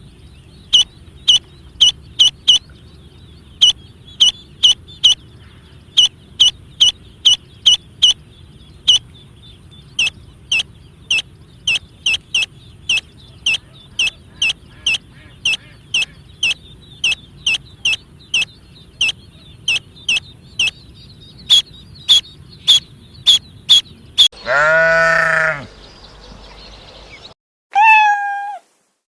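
A long run of short, high, down-sweeping peeps, about two a second, then one loud bleat about 24 seconds in and a shorter falling cry near the end.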